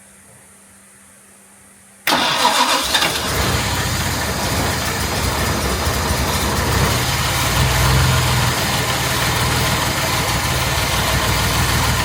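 Jaguar Mk II's XK straight-six engine started suddenly about two seconds in and kept running steadily, turned over during a spark check with plug testers on four cylinders.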